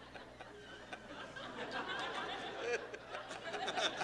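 Audience laughing, the laughter swelling about halfway through.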